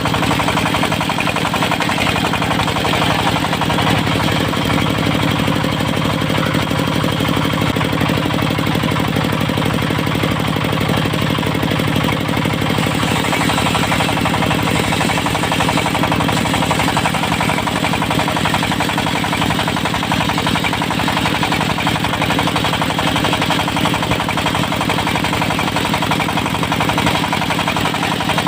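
Diesel engine of a locally built circular-blade sawmill running steadily at a fast, even chugging beat.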